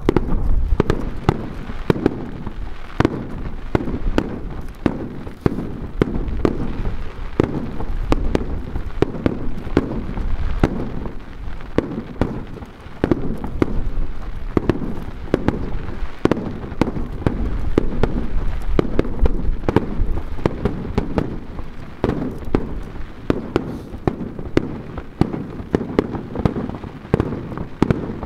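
Aerial fireworks shells launching and bursting in a continuous rapid barrage, several bangs a second with deep booms.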